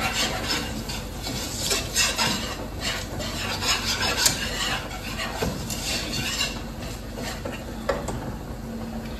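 Metal wire whisk scraping and stirring a thick, lumpy flour-and-butter roux in a frying pan: a steady run of repeated scraping strokes, with a few sharp clicks of the whisk against the pan.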